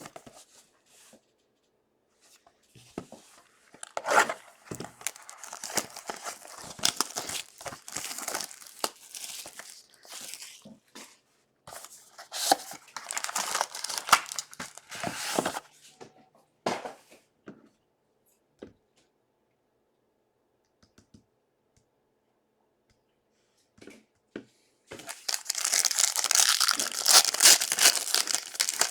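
Plastic wrapping on a sealed trading-card box and pack being torn open and crinkled by hand, in irregular rustling spells. A pause about two-thirds of the way through is followed by louder, denser crinkling near the end.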